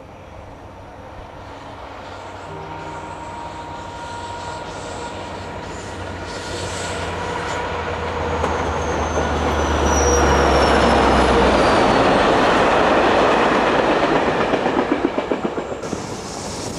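SNCF BB 67300-class diesel locomotive hauling a short train of works wagons, approaching and passing. The engine's low drone grows steadily louder to a peak about two-thirds of the way through, then gives way to a quick run of wheel clicks over the rail joints as the wagons go by.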